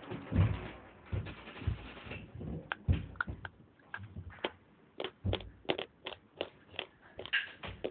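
Dry white clay bar being chewed close to the microphone: a run of irregular sharp crunches and clicks, some with a dull low thump.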